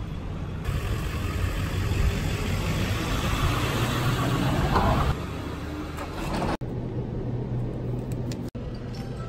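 Road-traffic noise: a steady low rumble with a rushing sound that swells over a few seconds and cuts off suddenly about five seconds in.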